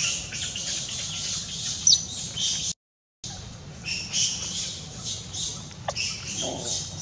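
Baby macaque squealing and crying over and over in short, high-pitched squeaks, with one sharper falling squeal about two seconds in. The sound cuts out completely for about half a second near the middle, then the squeals resume.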